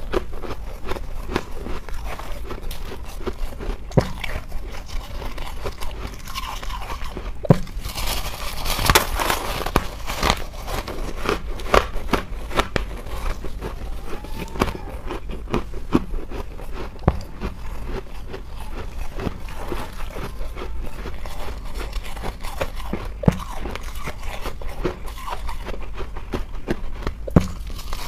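A person biting and chewing thin pieces of frost ice: a dense run of sharp crunching cracks as the brittle ice breaks between the teeth, with a few louder snaps.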